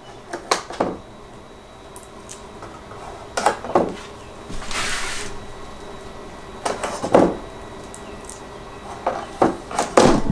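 A wooden mountain dulcimer body being handled while rubber feet are fitted to its underside: scattered light wooden knocks and taps, with a short rustle about five seconds in.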